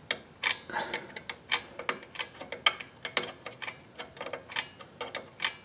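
Rear drum brake self-adjuster on a 2000 Honda Odyssey clicking as it is worked with a screwdriver: sharp metallic ticks, irregular, about two to four a second.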